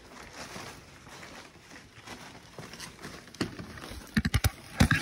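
Faint rustling, then a quick run of sharp knocks and clicks in the last second and a half, the loudest just before the end.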